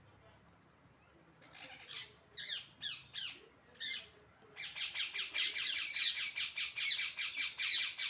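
Green parakeet squawking: a few separate harsh calls, then a fast run of screeches, about five a second, through the last three seconds.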